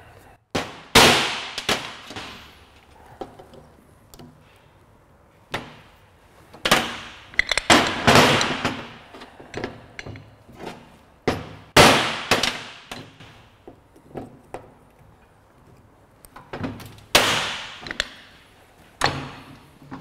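Hammer blows on the steel yoke of a Land Rover propshaft universal joint, knocking the needle-bearing caps out to remove the worn joint. Sharp metallic strikes ring on after each hit and come in small groups every few seconds.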